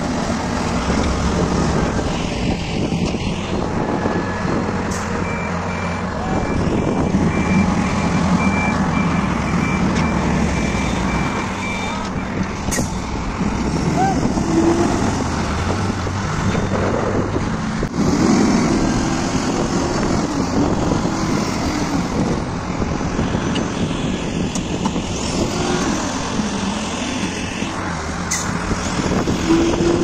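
Ashok Leyland tipper truck's diesel engine running as the truck manoeuvres. From about five seconds in, a reversing beeper sounds in a regular series of short beeps for about seven seconds.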